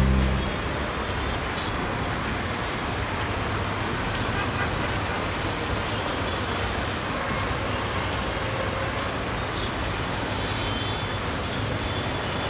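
Steady low rumble of an approaching diesel locomotive hauling a heavily overloaded passenger train, heard at a distance against a background of steady urban noise. Electronic music fades out just at the start.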